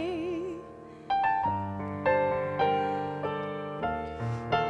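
A held female sung note with vibrato trails off, and after a brief pause a piano takes over with a slow accompaniment interlude, notes and chords struck about once or twice a second.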